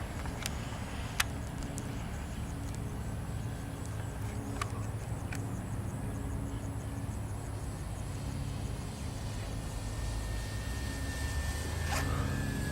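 Simulated radial-engine sound effect from a Parkzone Wildcat electric RC warbird in flight, a steady low drone with a few sharp clicks in the first seconds. A high whine falls slightly in pitch near the end.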